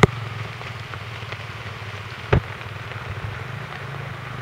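Single-cylinder off-road trail bike engine idling steadily, with two sharp knocks: one at the very start and a louder one about two and a half seconds in.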